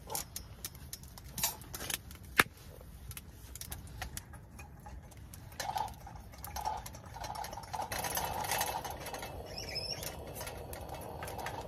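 A camping lantern that was going out being tended and brought back: scattered clicks and small knocks of handling, with a steady hiss in the last few seconds.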